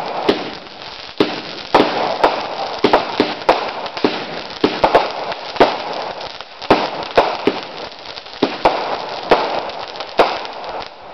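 Consumer fireworks going off in rapid succession: a steady crackle with sharp bangs and pops, one or two loud reports a second.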